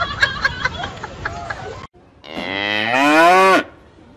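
Voices and laughter trail off, then a single loud cow moo, about a second long, rising in pitch and then levelling off before cutting off sharply. It is a dubbed-in sound effect.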